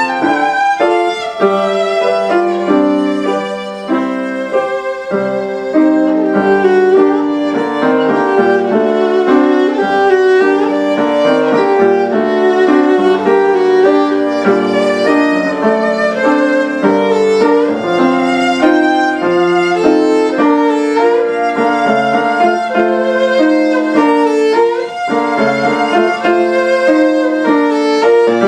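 Solo violin playing a melodic classical line with vibrato, with piano accompaniment underneath.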